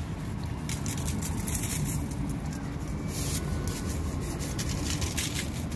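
Coarse grilling salt shaken from a plastic container onto a raw beef brisket, in several short sprinkling bursts with the loudest about three seconds in, over a steady low rumble.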